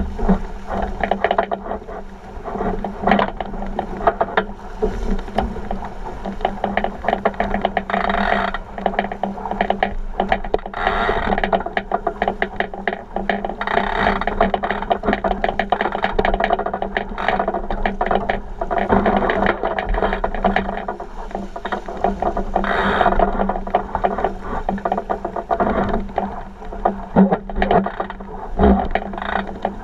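A 49er skiff under sail: a muffled rush of water along the hull, with constant rapid rattling and knocking from the hull and its fittings and a steady low hum.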